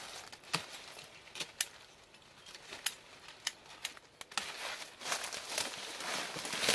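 Pruning shears cutting at the base of a sugarcane stalk: a string of sharp snips and cracks. From about halfway through, dense rustling and crackling of dry cane leaves as the stalk is handled.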